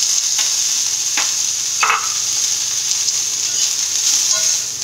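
Steamed broccoli florets sizzling steadily in hot oil in a small kadai as they are stir-fried, with a few sharp clicks of a steel spoon against the pan.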